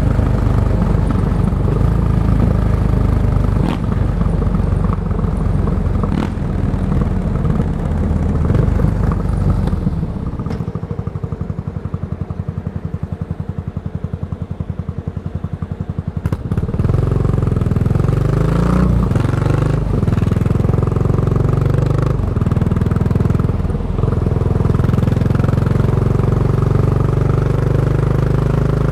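Yamaha SR400's single-cylinder four-stroke engine through a Goods tapered-cone slip-on muffler, heard from the rider's seat. It runs along, drops for several seconds from about a third of the way in to a slow, even idle thumping, then pulls away with revs rising through the gears and settles into a steady cruise.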